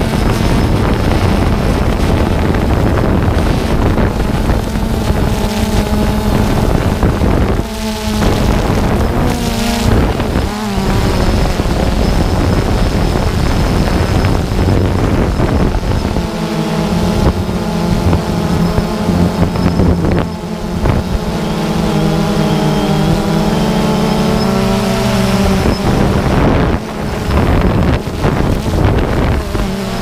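DJI Phantom 2 quadcopter's motors and propellers buzzing steadily in flight, their pitch shifting as it manoeuvres, with wind rushing over the microphone.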